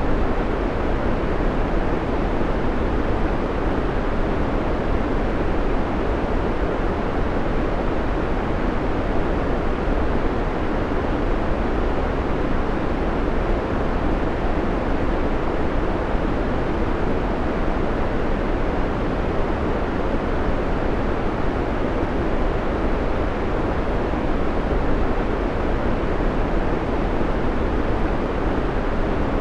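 Steady synthetic white noise: an even, unchanging hiss that weighs more in the low and middle range than the highs.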